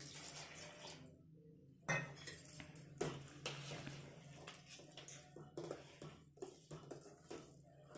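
Steel spoon scraping and clinking faintly against a steel bowl while stirring thick dosa batter, in uneven strokes, the loudest about two and three seconds in.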